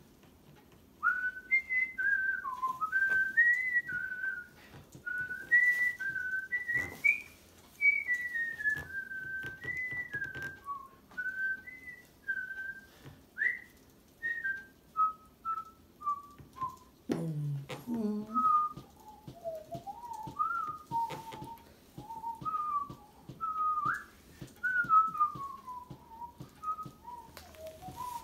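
A woman whistling a tune: a wandering melody of short notes that starts about a second in, with a brief low vocal sound a little past the middle.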